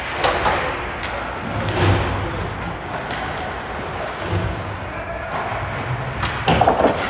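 Ice hockey play around the net: sticks, skates and puck knocking on the ice and boards, with a quick run of loud thuds near the end as players crowd the crease and the goalie goes down to block.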